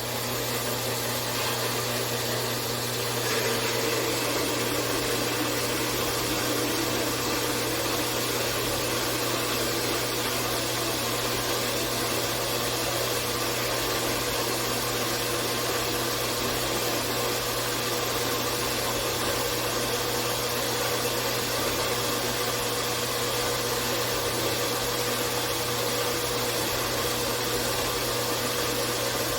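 4x6 horizontal metal-cutting bandsaw running steadily, its cheap blade sawing through a steel axle stub, with a steady motor hum and a faint ringing tone from the cut.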